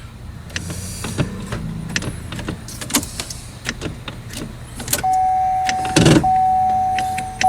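Clicks and knocks of a 2012 Chevrolet Sonic's automatic gear selector and its button being worked. About five seconds in, an electronic warning chime from the car starts: a single steady tone repeating in notes about a second long, each starting loud and fading, with a heavy thump near the sixth second.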